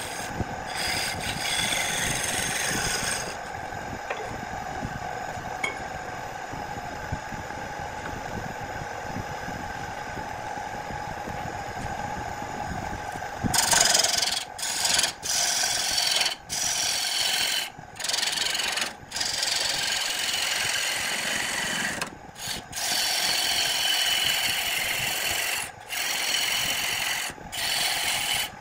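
A hand-held gouge cuts into a wooden vase blank spinning on a wood lathe, giving a steady scraping hiss over the lathe's constant hum. About halfway through the cutting gets louder and harsher, broken by several brief gaps.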